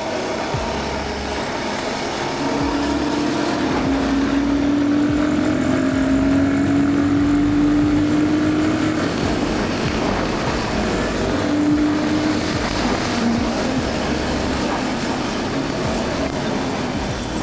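Royal Enfield Guerrilla 450 motorcycle riding on a highway: engine running under heavy wind rush on the microphone. A tone rises slowly in pitch for several seconds starting about two seconds in, and comes again briefly near twelve seconds.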